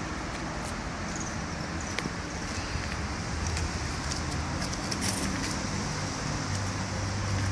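Steady road-traffic noise with a low hum and a few scattered light clicks.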